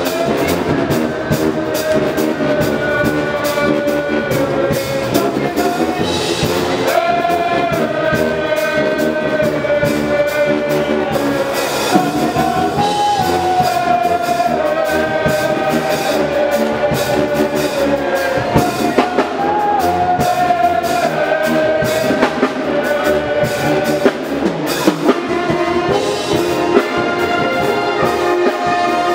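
Pep band of trumpets, saxophones and sousaphones playing a loud, brassy tune in long held notes over a steady beat.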